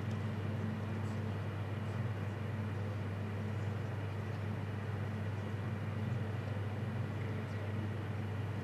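Steady low mechanical hum over an even hiss of background noise, unchanging throughout: the ambient drone of a large stadium.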